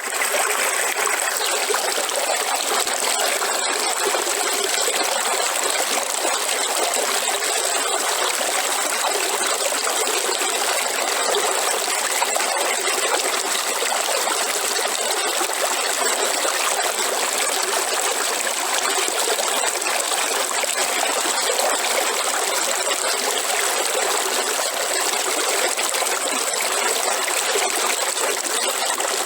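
River water flowing steadily over rocks, a continuous trickling rush without a deep rumble.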